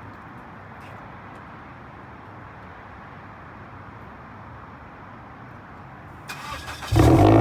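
Steady, even rumble like vehicle noise. Near the end a much louder sound with steady held tones starts suddenly.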